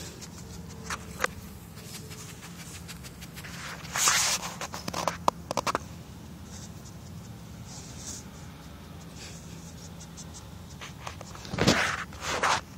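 A dog sniffing and snuffling with its nose in the grass while hunting a small lizard, with rustling; the loudest bursts of sniffing come about four seconds in and again near the end.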